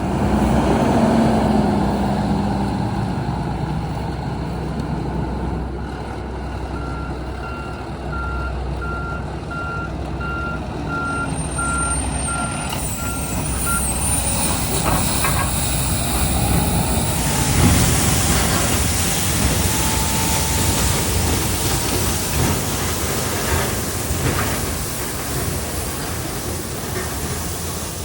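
Heavy paving equipment and trucks running with a steady low engine rumble. A backup alarm beeps at an even pace, a little over once a second, for several seconds in the middle. A louder rushing noise follows later.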